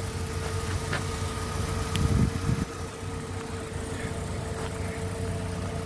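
A 2001 Chevy S10's 2.2-litre four-cylinder engine idling steadily, with a brief low thump about two seconds in.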